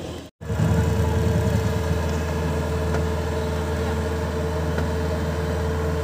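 Kubota DC-70 Plus combine harvester's diesel engine running steadily, with a steady higher hum over the low engine note; it comes in after a momentary gap just after the start.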